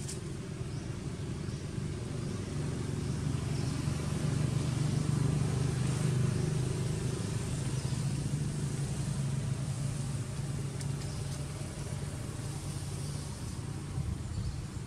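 Motor vehicle engine running steadily as a low hum, growing louder a few seconds in and fading away near the end, as if it passes by.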